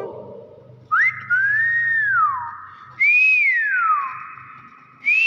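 Hill myna whistling: three clear whistles about two seconds apart, each rising briefly and then gliding down in pitch, with a ringing tail after each.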